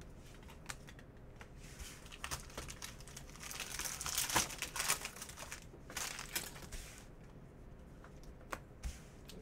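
A foil trading-card pack crinkling as it is torn open and peeled apart, in two spells of a few seconds, with light clicks of cards being flipped and slid against one another before and after.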